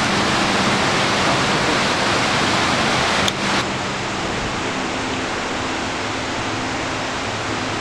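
Steady rush of flowing water, a mountain stream. A brief click comes a little over three seconds in, and the rush is slightly quieter after it.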